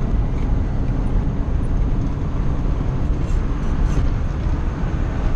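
Mazda T4000 truck on the move, heard from inside its cab: a steady drone of engine and road noise.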